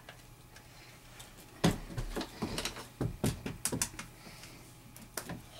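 Light clicks and knocks of plastic toy food and a plastic toy grill being handled. There is a quick irregular run of them starting about a second and a half in, and one more near the end.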